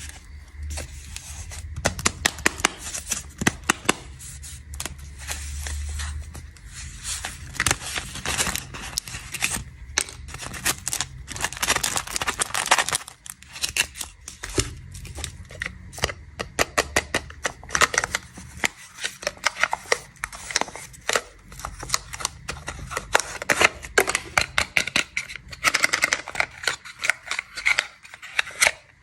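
Plastic snack packaging being unwrapped and handled, crinkling and rustling with many sharp crackles.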